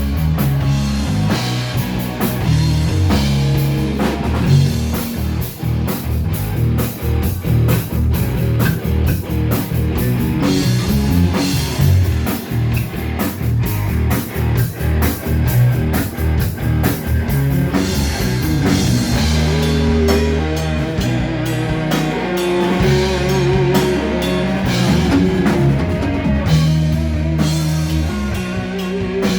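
Live rock band playing with guitar and a busy drum kit over sustained low notes; a held, wavering tone stands out about two-thirds of the way through.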